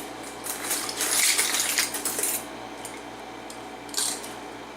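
Small metal lock-disassembly followers clinking and rattling as they are sorted through by hand, busiest from about a second in, with one more clink near the end.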